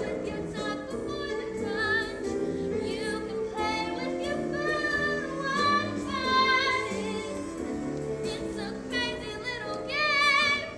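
Show tune sung with musical accompaniment, the voices singing with vibrato and building to a loud held note near the end.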